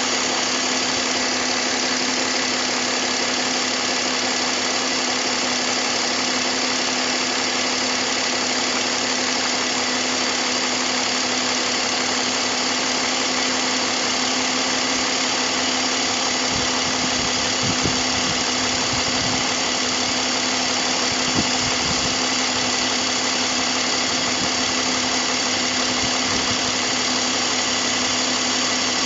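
BMW M54 straight-six engine idling steadily, with a few low bumps in the middle.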